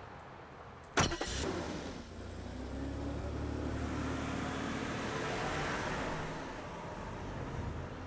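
A car door slams shut once, then a Lincoln Town Car sedan's engine runs and the car drives off, its sound swelling and then fading away.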